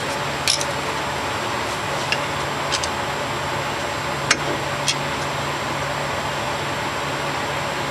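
Steady mechanical hum of a fan or ventilation unit, with a handful of light clicks and taps in the first five seconds from parts being handled.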